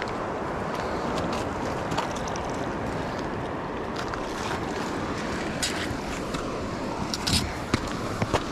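Steady wind rushing over the microphone, mixed with moving water along the aqueduct bank. A few short knocks come near the end.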